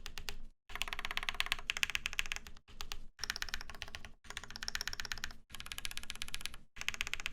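Fast typing on a Space65 CV mechanical keyboard: a dense clatter of key clicks in several short stretches, each broken off by a sudden brief silence.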